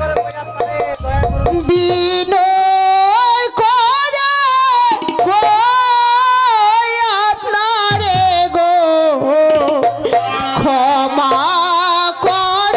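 Jatra stage accompaniment music: a few tabla strokes, then a high melody of long held notes with a wavering vibrato.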